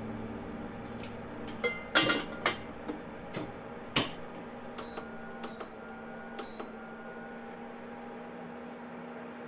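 A kitchen appliance humming steadily, with a few sharp clicks and knocks about two to four seconds in, then three short electronic beeps a little after the middle.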